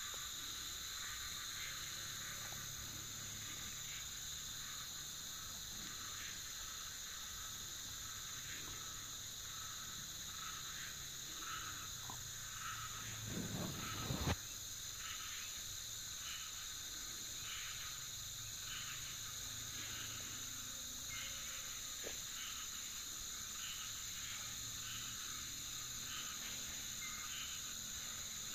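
Outdoor chorus of insects: a steady high-pitched buzzing, with a short pulsed call repeating about once or twice a second. A brief bump about halfway through, from the microphone being handled or brushed.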